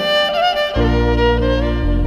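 Background music: a gliding lead melody, with sustained low bass notes coming in under it less than a second in.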